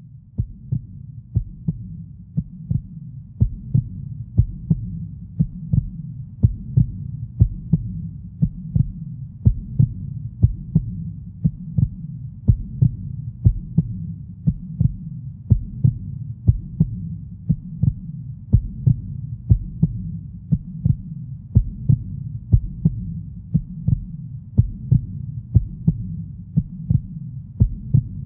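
A deep hum with a low thump repeating about twice a second, like a heartbeat, swelling over the first few seconds and then holding steady.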